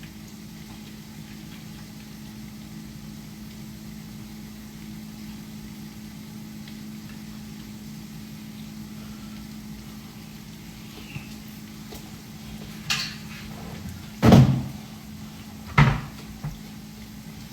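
A steady low hum, then several sharp knocks in the last few seconds, the loudest like a cupboard or door being shut in a kitchen.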